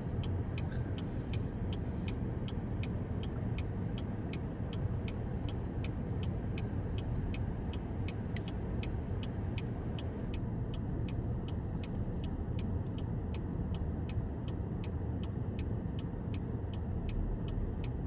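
A car's indicator ticking steadily, about two to three clicks a second, over a low steady rumble of the vehicle inside the cabin.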